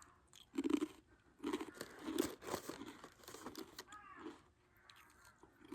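Close-up crinkling and rustling of plastic packaging being handled, in several short irregular bursts.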